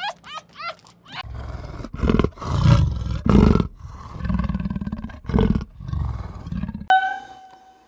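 A large animal growling and roaring in a series of deep, rough bursts, loudest about two to three and a half seconds in. It opens with the last of a run of short, sharp yipping calls, and near the end a steady, high-pitched call starts suddenly.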